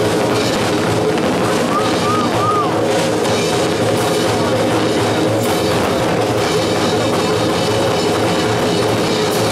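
Loud rock music with a heavy drum beat, with a few sharp firework bangs cutting through it.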